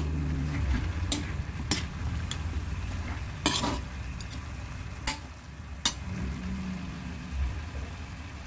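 Metal ladle scraping and knocking against a wok as chicken pieces are stirred in it, over a light sizzle. The knocks come about once a second, the loudest about three and a half seconds in, and stop about six seconds in, leaving a low steady rumble.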